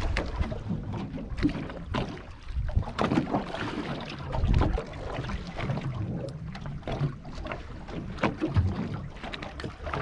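Wind buffeting the microphone over choppy open water, with waves slapping and knocking against the hull of a small aluminium boat in irregular sharp hits.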